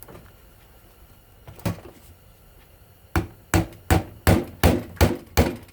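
A hammer striking a screwdriver in quick, even blows, about three a second, starting about three seconds in after a single knock: driving the screwdriver in to break the copper winding free of a ceiling fan motor.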